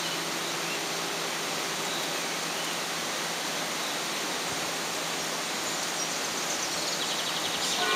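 Steady, even rushing background noise with no distinct events, and a faint quick run of ticks near the end.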